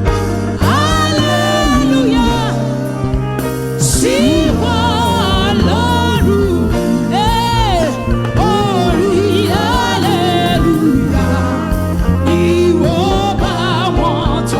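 Gospel worship music: a voice singing long, wavering, ornamented lines over sustained instrumental accompaniment.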